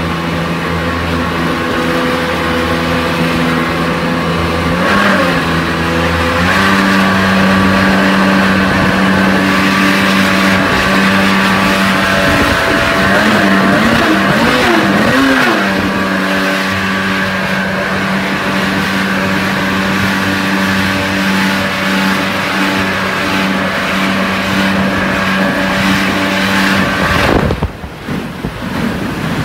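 Outboard motor pushing a small aluminium boat, running steadily; its pitch steps up about six seconds in and wavers up and down around the middle. Near the end the engine note drops away, leaving wind and water noise.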